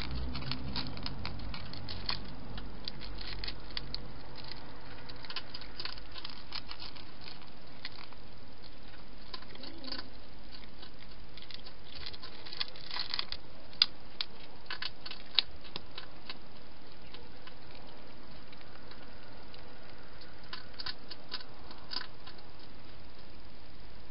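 Rapid, uneven clicking and crunching of an animal chewing food at a feeding dish, coming in spells with two sharper clicks about halfway through, over a steady background hiss.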